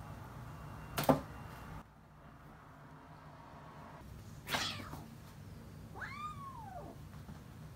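A kitten meowing once about six seconds in: one drawn-out call that rises a little and then falls away. Earlier, two short, sharp noises, the first, about a second in, the loudest, the second about four and a half seconds in.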